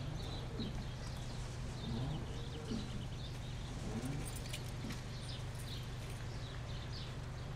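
Small birds chirping again and again over a steady low hum.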